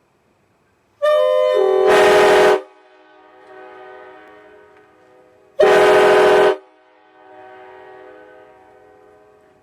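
Nathan Airchime K5LA five-chime air train horn sounded in two blasts, a longer one about a second in and a shorter one a few seconds later, its chord lingering faintly after each.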